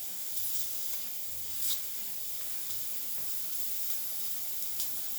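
Steam wand of a Breville Dual Boiler espresso machine venting steam in a steady hiss, with a couple of brief sharper spits.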